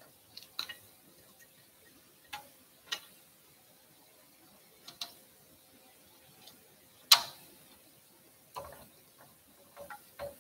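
Kitchen tongs clicking and tapping irregularly against the wire rack of an electric fish roaster as marinated quail are moved about on it. The sharpest click comes about seven seconds in, over a faint steady hum.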